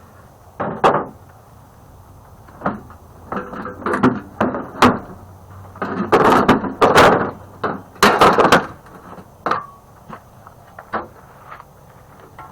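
Irregular clanks, scrapes and rattles of a microwave's sheet-metal casing and parts being pried open and handled, with the loudest clatter about six to eight and a half seconds in.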